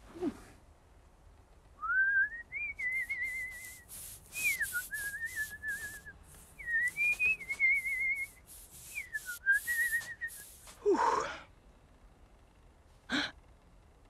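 A cartoon character whistling an idle tune in four short, wavering phrases, over short crunching sounds like steps in snow. A brief vocal sound follows about eleven seconds in, and a single click near the end.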